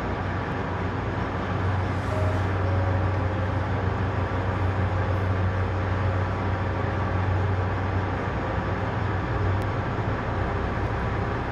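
Tugboat's twin V8 diesel engines running at dead slow under load, pulling a tanker on the towline: a steady deep drone that swells a little about two seconds in.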